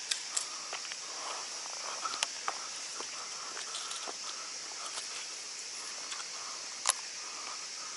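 Steady high-pitched hiss of evening insects, with scattered sharp clicks and taps over it, the loudest about seven seconds in.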